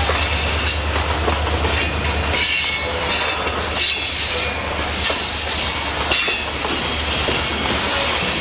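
Freight train cars rolling past on a curve, wheels clattering over the rails with high-pitched steel wheel squeals that come and go.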